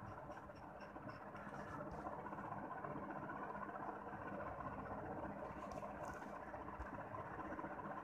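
Steady background room noise with a low hum, no speech. A faint, quick high ticking, about four ticks a second, runs through the first second and a half.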